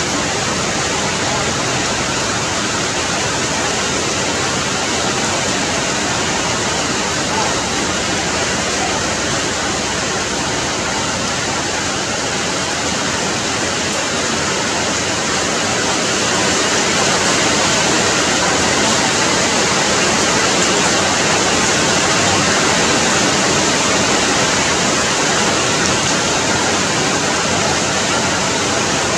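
Steady rain falling on leaves and branches, a dense even hiss that grows a little louder about halfway through.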